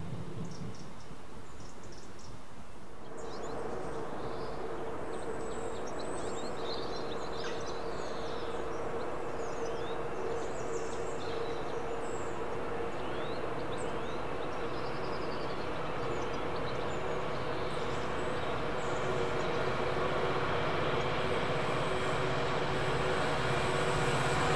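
A train approaching on the line, a steady hum with a held engine-like tone growing slowly louder as it nears. Birds chirp in the background.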